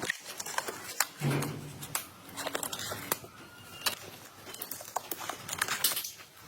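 Scattered clicks and crinkling, like hands handling objects at close range.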